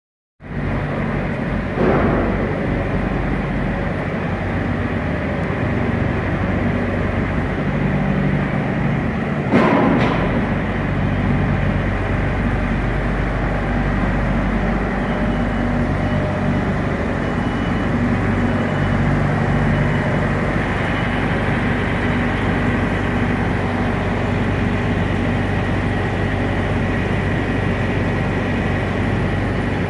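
Diesel of a parked Kenworth cab-over semi rig with a refrigerated trailer, running steadily at idle, with two sharp knocks about two and ten seconds in.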